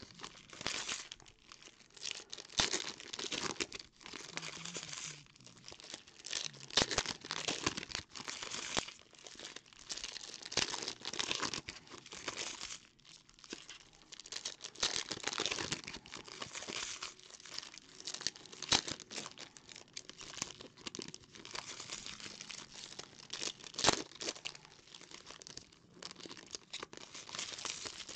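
Foil trading-card packs being torn open and unwrapped by hand: continuous crinkling and rustling of the foil wrappers, with frequent sharp crackles as the foil is ripped and crumpled.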